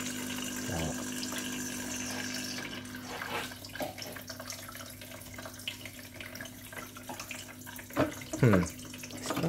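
Water being poured into a Gex cat drinking fountain's reservoir for the first few seconds, over the steady hum of its small electric pump. After that the pump keeps humming, with light trickling and dripping.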